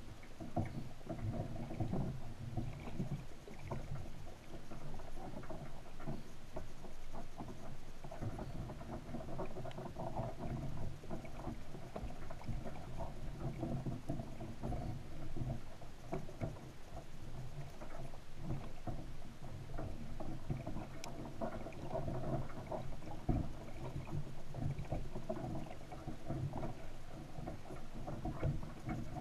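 Underwater ambient noise picked up by a submerged camera: a steady muffled low rumble of moving water, with many faint clicks and ticks scattered through it.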